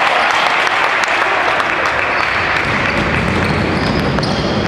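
Spectators applauding, the clapping easing off after about three seconds.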